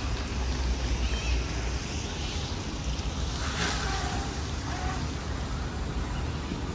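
Steady outdoor city ambience: a low rumble with wind buffeting the microphone and a faint wash of background noise.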